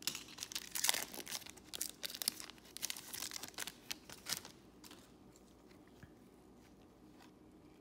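Foil trading-card pack wrapper crinkling and crackling as it is torn open and the cards are pulled out. The sound stops about four and a half seconds in.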